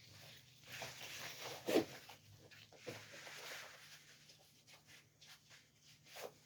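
Faint rustling and scraping of harness webbing and buckles being handled and adjusted, with a sharper knock a little under two seconds in.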